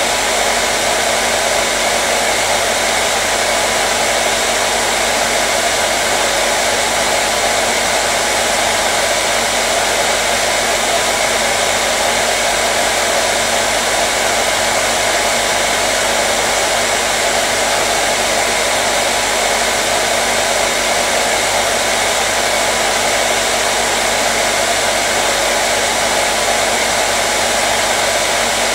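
Hair dryer running continuously, a steady, unchanging whooshing hum of its fan and airflow.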